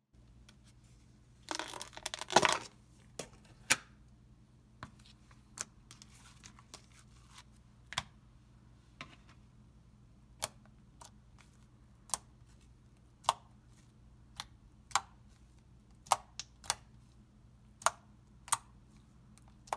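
Fingers squeezing and poking homemade glue slime: a crackling burst about two seconds in, the loudest moment, then scattered sharp pops and clicks as the fingers press into it. A faint steady hum runs underneath.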